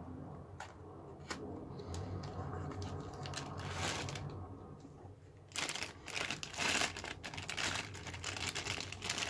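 Clear plastic bag crinkling as it is drawn out of a small cardboard box and handled. A few light clicks from the box's card flaps come first, and the crinkling grows much louder about halfway in.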